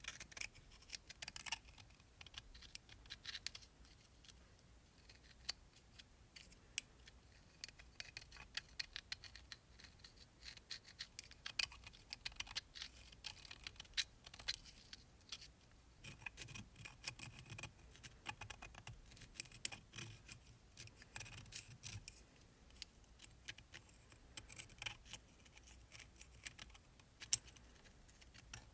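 Close-up, faint hand work on an old ratchet's small metal parts: irregular clicks, scrapes and scratchy rubbing, as in cleaning off rust and grime.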